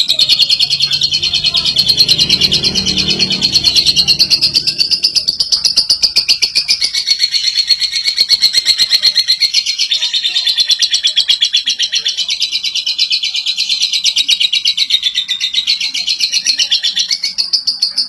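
Caged lovebird singing a long, unbroken chatter of very rapid high notes: the continuous 'ngekek' song that keepers try to bring out in lovebirds.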